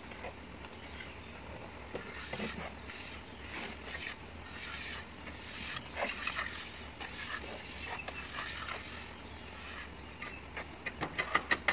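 Plastering trowels scraping and smoothing wet cement render on a wall, in irregular rasping strokes, with a quick run of sharp taps near the end.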